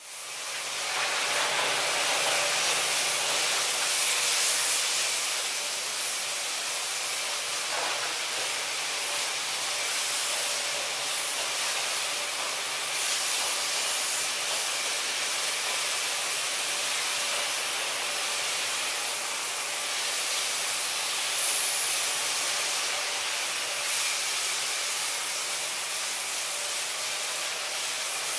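Baader 52 fish-skinning machine running, with the steady hiss of its water sprays.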